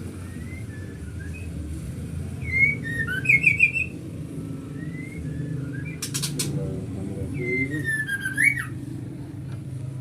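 Birds whistling and chirping: scattered short whistled notes, a quick trill about a third of the way in, and a louder gliding whistle near the end. There is a brief rattle of clicks a little past halfway, and a steady low hum underneath.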